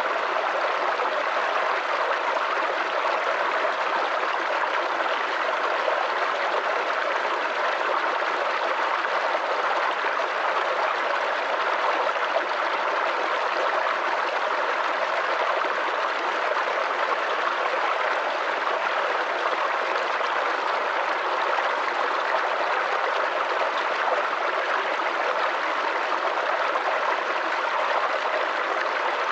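Babbling brook: shallow creek water gurgling and trickling over stones in a steady, even rush with no breaks.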